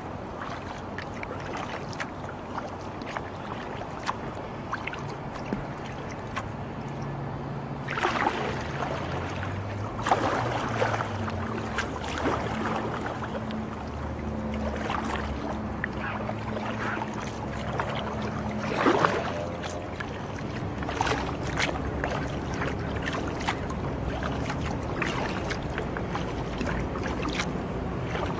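Kayak paddle strokes dipping and splashing in calm river water, with drips and small knocks along the hull, and a few louder splashing strokes. A faint low hum comes and goes in the background through the middle.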